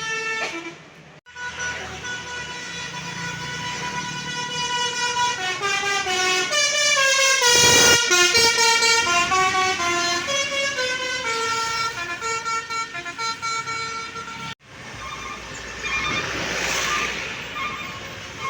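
Bus 'telolet' Basuri multi-tone horns playing quick tunes, jumping from note to note, over the noise of the buses themselves. The sound grows loudest as a bus passes about eight seconds in, and it breaks off abruptly twice where separate passes are cut together.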